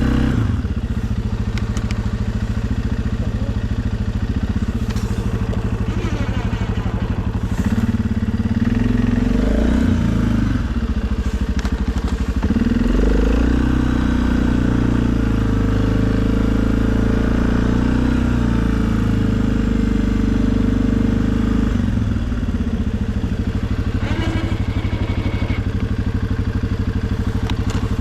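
Suzuki KingQuad ATV engine running steadily. Its speed rises and falls a few times about a third of the way in, then settles back to a steady run.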